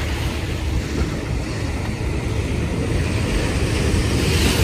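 Wind rumbling on the microphone over the steady wash of small waves breaking on the shore, the surf growing a little louder near the end.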